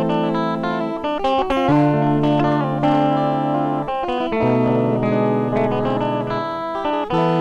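Instrumental music led by guitar. A held low note steps down twice and returns to its starting pitch near the end, under plucked notes.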